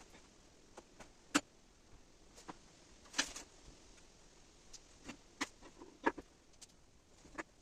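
Irregular light clicks and taps, about a dozen, unevenly spaced, with sharper ones about a second and a half, three seconds and six seconds in.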